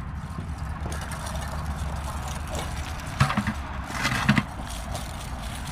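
Two short clusters of hollow knocks and rattles, about three and four seconds in, as a plastic bucket is handled, over a steady low rumble.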